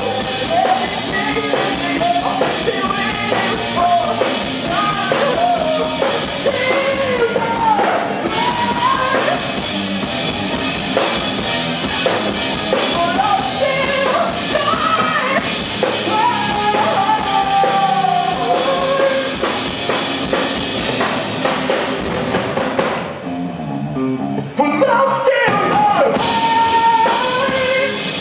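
Live rock band playing with sung vocals over drum kit and guitars. Near the end the band thins out for about two seconds, then the full band comes back in sharply.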